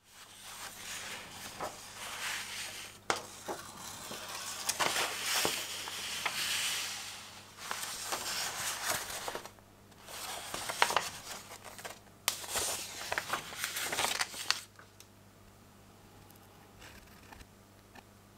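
Crinkling and rustling of a plastic model kit's parts and its paper instruction booklet being handled and leafed through, with sharp clicks, in several bouts with short pauses. It stops about fifteen seconds in.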